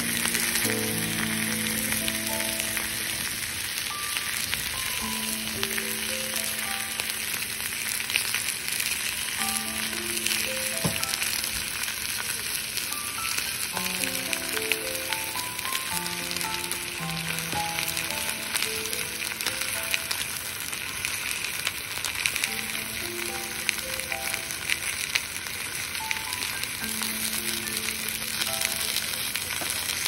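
Thick slab of red meat searing in a small cast-iron skillet over a gas canister stove, a steady frying sizzle. Soft background music notes play under it.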